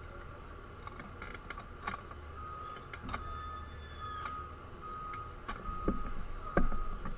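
A repeating electronic beep, about once a second, over a steady low engine rumble, with clicks and a couple of louder knocks near the end.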